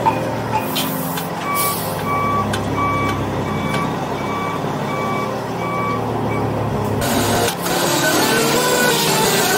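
A truck's backup alarm beeping about twice a second over a running diesel engine, stopping after about ten beeps. About seven seconds in, a loud hiss with a wavering squeal sets in.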